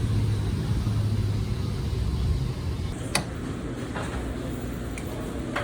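Steady low rumble of a running vehicle. About three seconds in it gives way to quieter background noise with a few sharp clicks.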